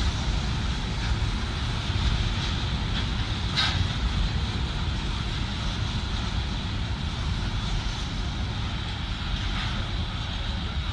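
Diesel-hauled train running past with a steady low rumble. A faint high steady tone and a few short clanks sound over it, one plainer about a third of the way in.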